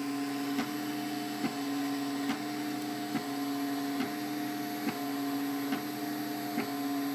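MakerBot Replicator 3D printer running a print: its stepper motors whine steadily while the extruder head traces the layer, with the cooling fan running. The tone breaks with a short tick a little more than once a second, as the head reverses at the end of each line.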